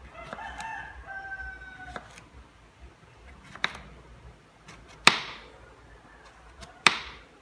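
Kitchen knife slicing through a thick cucumber onto a wooden cutting board: three sharp knocks of the blade striking the board, about a second and a half to two seconds apart. Before the knocks, a rooster crows once in the background.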